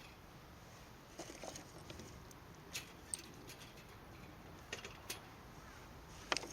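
Sparse light clicks and taps, about seven of them at uneven intervals, the loudest near the end, as of small hard objects being handled.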